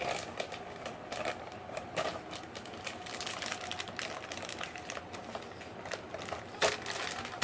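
Handling noise from unboxing a power supply and its cables: scattered light clicks and knocks with plastic-bag crinkling, one sharper knock near the end.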